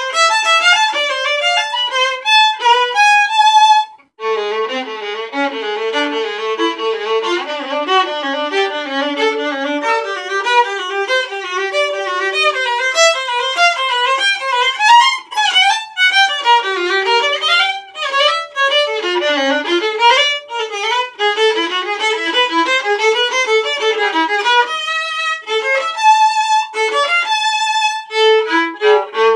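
Solo violin played with the bow, a continuous line of notes. It breaks off for a moment about four seconds in, then goes on in the lower register for several seconds before moving back up.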